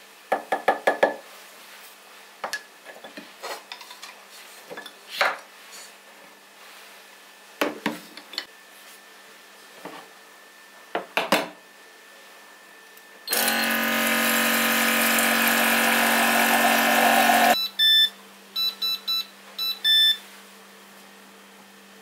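Scattered clicks and knocks of kitchen handling, then a small electric appliance motor runs loudly and steadily for about four seconds and stops suddenly, followed by a series of short electronic beeps.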